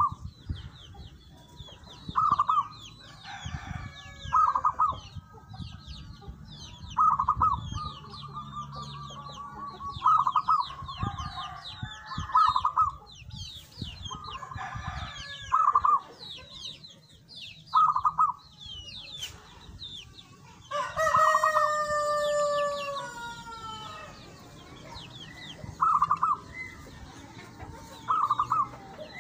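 Caged zebra dove (perkutut) singing: short, rolling, trilled coo phrases repeated every two to three seconds. Small birds chirp high and faintly throughout, and about two-thirds of the way through another bird gives a longer, louder call that falls in pitch.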